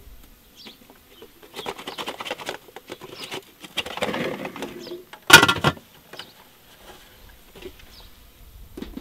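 Boilies rattling in a steam-cooker basket as it is handled and shaken, in two bursts. About five seconds in comes a single loud clank, the loudest sound, as a steamer tier is set down on the pot, followed by a few light knocks.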